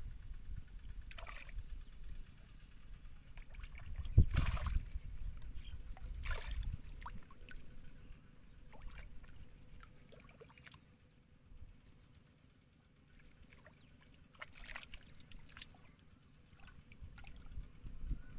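Hands sloshing and groping in shallow muddy water, with sharper splashes about a second, four seconds and six seconds in and again near fifteen seconds, the one about four seconds in the loudest, over a low rumble.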